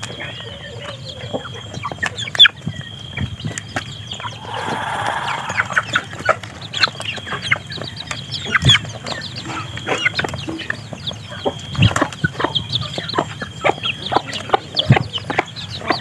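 A flock of young chickens feeding from a tray of grain: quick pecking clicks on the feed and tray, with chirping and soft clucking throughout and a brief rustle about five seconds in.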